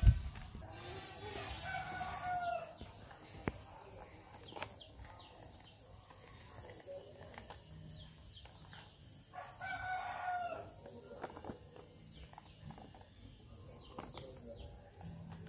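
A rooster crowing twice, once in the first few seconds and again about ten seconds in, with light paper rustling and handling clicks between.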